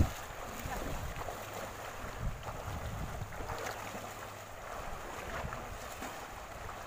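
Shallow river running over rocks, with water splashing around wading legs and wind rumbling on the microphone; a steady, even rush with no single loud event.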